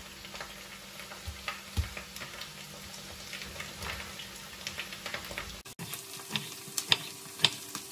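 Diced potatoes frying in hot vegetable oil in a skillet, a steady sizzle with many small crackles, and a few sharper taps near the end.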